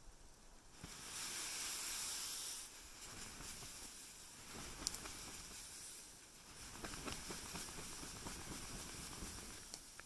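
Gloved hand sweeping a heavy layer of fresh snow off an MSR Elixir 3 tent fly: a hissing swish as the snow slides off the fabric, loudest about a second in, then several more bouts of brushing.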